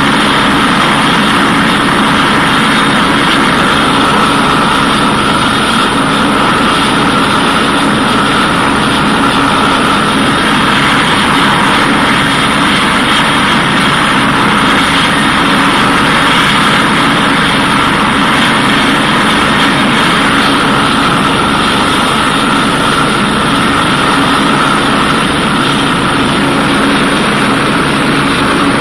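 Airbus EC145 helicopter's twin turbine engines and rotor running steadily, a constant whine over an even rushing noise.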